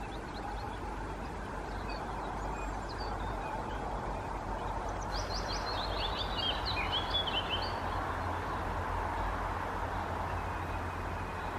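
A songbird singing a quick run of high, mostly falling notes about five seconds in, lasting two to three seconds, with a few single chirps before it. Under it runs a steady low rumble.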